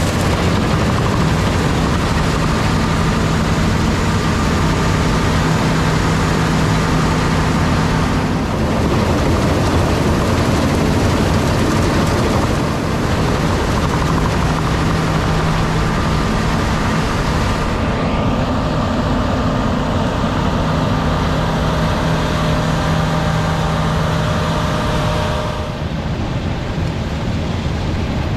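Heavy diesel harvest machinery running in the field: a steady engine drone with a few held tones under a broad rushing noise. The sound changes character about a third of the way in, again past halfway, and near the end.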